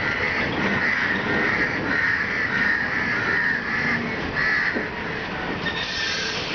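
Old ICF passenger coaches rolling past during shunting, wheels and running gear rumbling. A high screech comes and goes over the first four and a half seconds.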